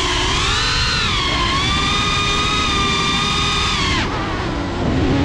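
Cinelog 35 FPV drone's motors whining, the pitch wavering with throttle, over a rush of air. About four seconds in the pitch drops sharply as the throttle is cut, then climbs again near the end as the motors spool back up.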